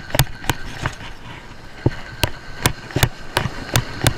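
Conventional surf-fishing reel being cranked to bring in a hooked fish, clicking about two to three times a second as the handle turns, with a short break about a second in.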